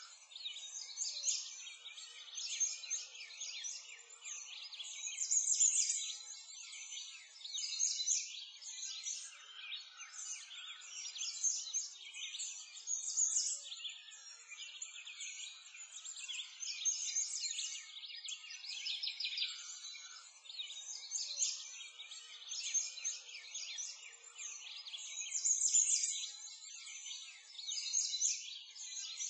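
A dense, continuous chorus of many small birds chirping and twittering, all high-pitched.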